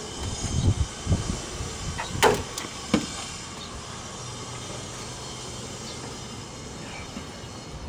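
A few sharp knocks and clunks from things being handled around a car's engine bay, the loudest about two seconds in, then a faint steady low hum.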